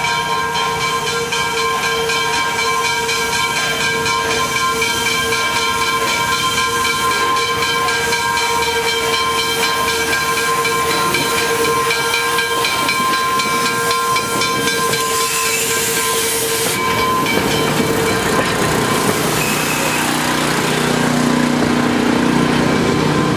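Wilmington & Western 0-6-0 steam locomotive No. 58 arriving with its passenger train: a steady multi-note tone runs through the first three quarters, steam hisses strongly as the engine passes about fifteen seconds in, and then the coaches roll by.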